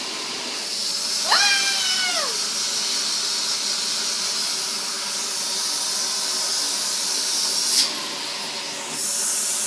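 Vacuum cleaner running with a steady hiss. About a second in, a baby gives one high squeal that falls in pitch and lasts about a second. A click comes near the end, and the vacuum's sound turns brighter and louder just before the end.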